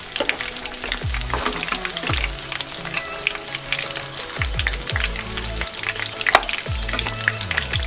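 Cornflake-crumbed chicken pieces deep-frying in hot oil, a steady crackling sizzle, while a slotted spoon stirs and turns them. One sharper click comes about six seconds in.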